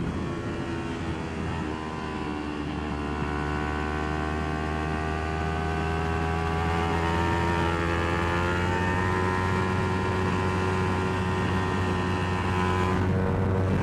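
Kawasaki Ninja 400 parallel-twin engine on track under throttle, its pitch dropping in the first couple of seconds, then rising slowly through the gear, falling back about two-thirds of the way through and climbing again.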